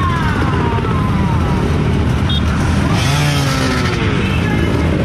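Several off-road trail motorcycle engines running and revving together, their pitch rising and falling.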